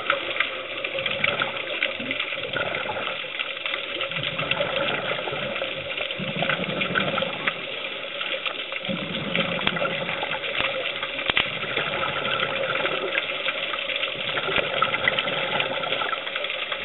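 Underwater sound picked up by a scuba diver's camera: a steady hiss and hum with dense crackling clicks, and a low bubbling rush every few seconds as the diver exhales through the regulator.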